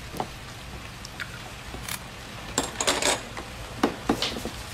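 Chopsticks and tableware clinking against dishes as people eat: scattered short taps and clinks over a low steady room hum.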